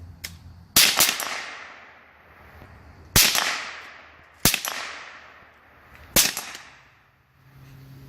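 Smith & Wesson M&P15-22 semi-automatic .22 LR rifle firing five shots at an unhurried pace: two close together just under a second in, then three more about a second and a half apart. Each crack trails off in a long echo.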